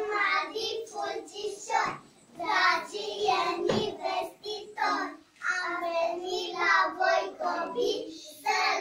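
A small group of young girls singing together in phrases, with childish voices at a moderate level.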